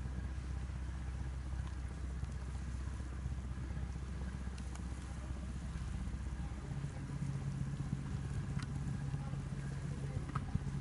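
Excursion ship's engines running steadily, heard from the open deck as a low hum that shifts up to a higher, steady hum about two-thirds of the way through.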